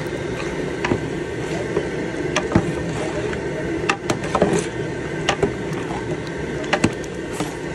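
A metal ladle stirring thick pea curry in a large aluminium cooking pot, scraping and knocking against the pot at irregular moments, over a steady rumbling background.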